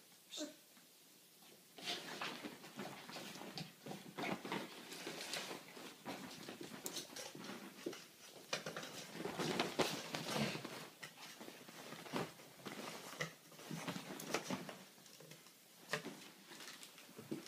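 A small dog and a kitten play-fighting on a bed: irregular rustling and scuffing of the duvet under their paws and bodies as they pounce and tumble.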